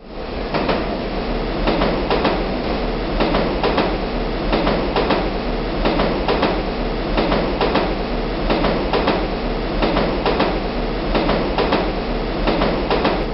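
Metro train running, heard from inside the carriage: a steady rumble with a deep hum, the wheels clacking over rail joints in pairs a little more than once a second.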